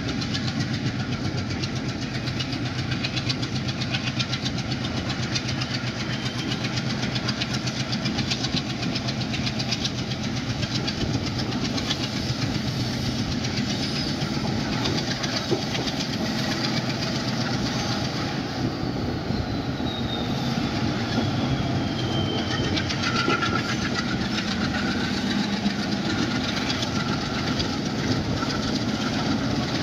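Train running along the track: a steady rumble with the rhythmic clatter of wheels over rail joints. About two-thirds of the way through, a faint high whine falls in pitch for a few seconds.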